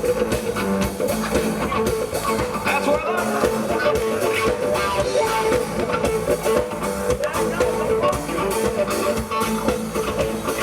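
Live band playing an instrumental passage: electric guitar strumming over a drum kit keeping a steady beat, with no singing.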